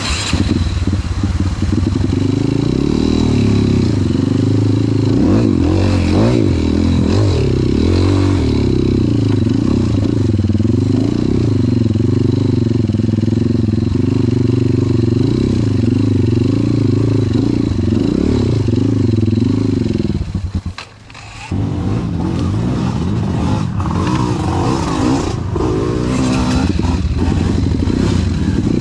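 Trail motorbike engine revving up and down under constant throttle changes, as on a rough off-road section. It cuts back sharply for about a second roughly three-quarters of the way through, then picks up again.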